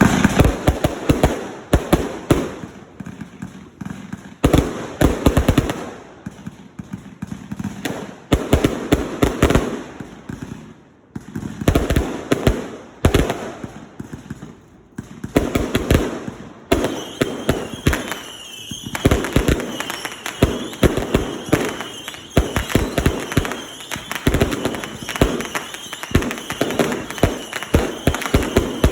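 Consumer fireworks going off: repeated clusters of sharp bangs and crackling every second or two, with a thin steady high tone joining about two-thirds of the way through.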